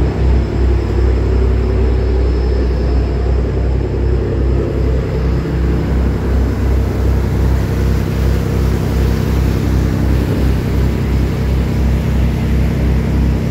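Ferry's engine running steadily underway: a low, pulsing drone. About halfway through, a rushing hiss of water and wind grows stronger over it.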